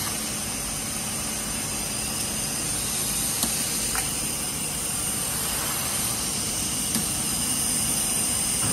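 Steady hissing machine noise from a running PP plastic tube extrusion line, with a few sharp clicks scattered through it.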